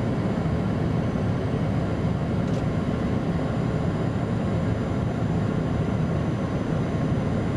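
Steady drone of an aircraft's engines heard from inside the cabin, even and unbroken, heaviest in the low end.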